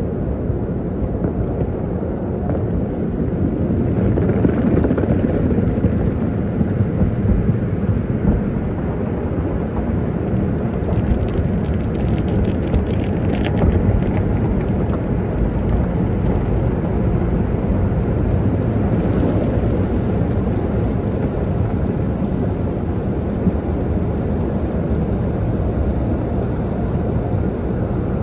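Automatic car wash heard from inside the car: a steady, heavy rumble of water and wash equipment working over the body and glass. A spell of light ticking comes about halfway through.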